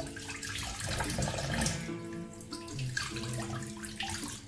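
Tap water running into a sink as cleaned sardines are rinsed by hand, with splashing. Background music with sustained notes plays underneath.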